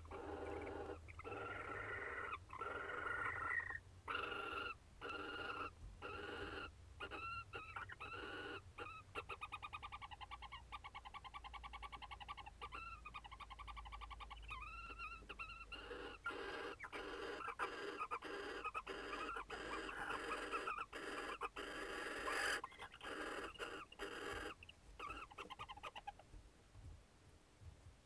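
Barn owl pair calling to each other over a prey delivery from the male, in repeated calls broken by short gaps. About nine seconds in, the calls turn into a long, rapid, pulsing trill lasting several seconds, then go back to separate calls that die away near the end.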